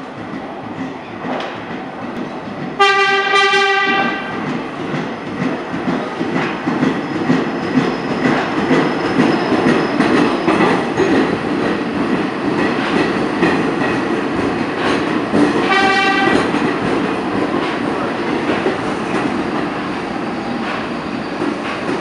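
IRT SMEE subway train entering a station and running along the platform, sounding its horn twice: a blast of about a second roughly three seconds in and a shorter one around sixteen seconds, over the loud running noise of the cars passing.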